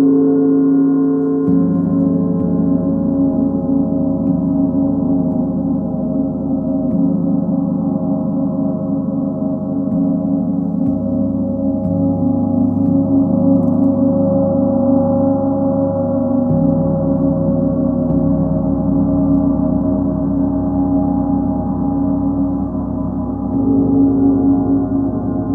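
Large planetary gongs tuned to the Sun, Full Moon and Earth ringing together in a dense, sustained wash of overlapping tones. The deep low tones shift as the gongs are played softly again, about a second and a half in, and again near the middle.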